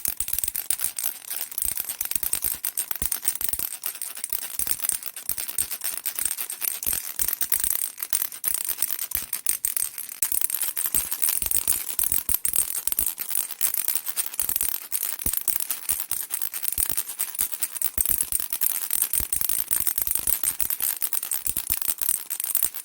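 Baby rattle shaken steadily: a dense, unbroken stream of small bright clicks and jingles.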